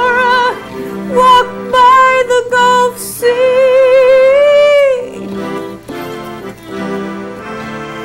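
Live acoustic trio of violin, keyboard and acoustic guitar, with a woman singing with vibrato; a long held note about three seconds in, then a quieter instrumental passage after about five seconds.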